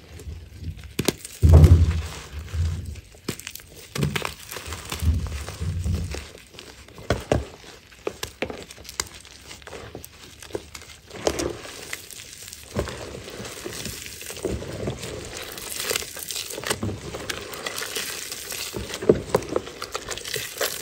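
Reformed chalk crumbs and chunks crunching and crackling as bare hands squeeze and crush them, with a run of dull thumps in the first six seconds.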